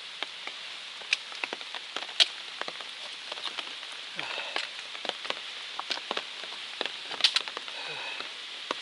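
Rain falling steadily, with many sharp clicks of single drops striking close by.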